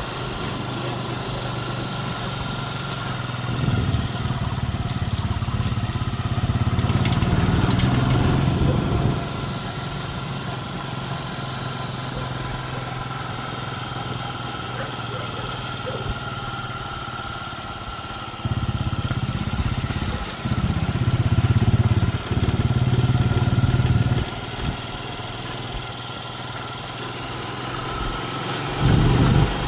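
A motor vehicle's engine running steadily, with several louder stretches that come and go abruptly.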